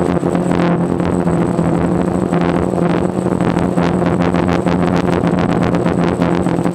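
DJI Phantom quadcopter's motors and propellers droning steadily, heard through the onboard GoPro, with frequent rapid crackles over the drone.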